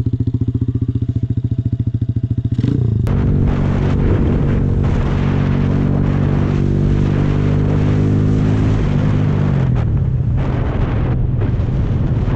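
RPS Condor 150cc single-cylinder engine through a loud aftermarket exhaust, idling with an even pulse and briefly revved. It then runs at a steady note under way, with wind noise on the microphone, and the pitch drops about nine seconds in as it slows.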